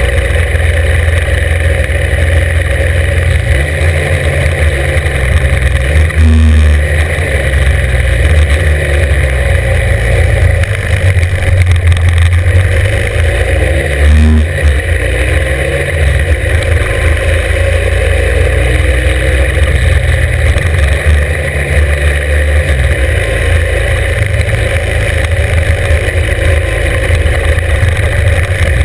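Norton 750 Commando's parallel-twin engine running hard under load on a hillclimb. The note shifts a few times as the revs change, with brief dips about six and fourteen seconds in.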